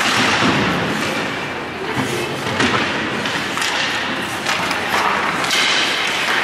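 Ice hockey play along the boards: skates scraping the ice, with several sharp knocks and thuds as players, sticks and the puck hit the boards.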